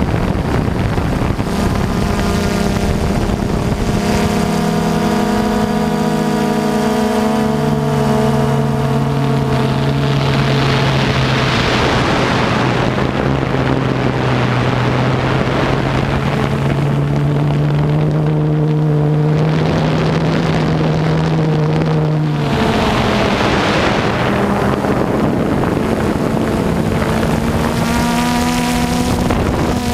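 DJI Phantom 2 quadcopter's propellers whirring steadily, with wind on the microphone. The motor pitch drops about seven seconds in and rises again near twenty-two seconds, and there are two gusts of wind noise.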